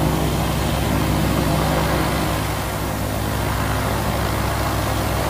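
Single-engine propeller airplane's piston engine and propeller running steadily during the takeoff roll, heard from inside the cockpit.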